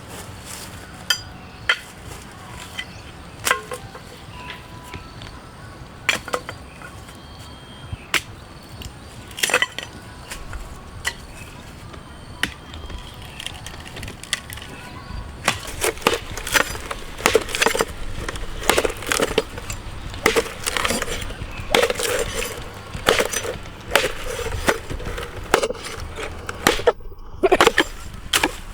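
A series of sharp knocks and cracks, sparse at first and then coming quickly and steadily from about halfway through.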